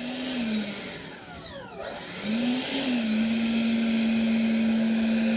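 64 mm electric ducted fan with a 3150 kV motor whining. It is throttled down about a second in, spools back up around two seconds in, and holds a steady high whine.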